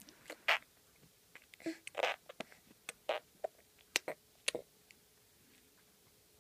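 A young child making mouth noises: a string of short lip smacks, tongue clicks and little puffs of breath, with one brief voiced sound, stopping about three quarters of a second before the middle.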